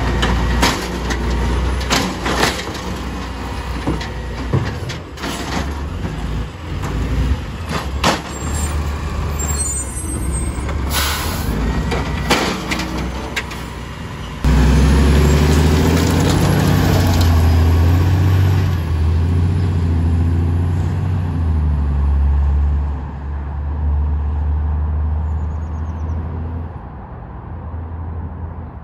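Automated side-loading garbage truck emptying a recycling cart: repeated clanks and knocks from the lifting arm and cart. About halfway through the truck's engine suddenly gets much louder as it pulls away, then fades near the end.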